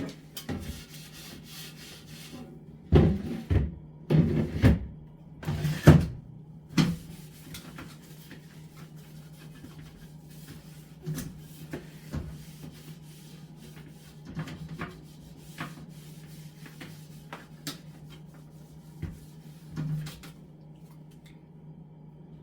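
Knocks and scrapes of plastic fridge parts being handled and fitted back, with a cluster of loud knocks about three to six seconds in, then scattered light taps. A steady low hum runs underneath.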